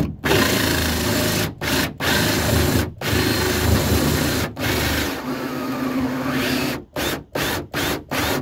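Cordless Makita drill turning a 2.5-inch hole saw that cuts through a plastic kayak deck, running in long stretches with a few brief stops. Near the end the trigger is pulsed, the drill stopping and starting about three times a second.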